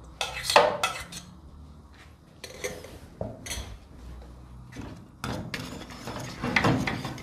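A metal bowl clinking against a stainless steel pot as grated coconut is tipped in, with a few sharp clinks in the first half. From about five seconds in, a wire whisk stirs and scrapes against the pot through a thick coconut and condensed-milk mixture.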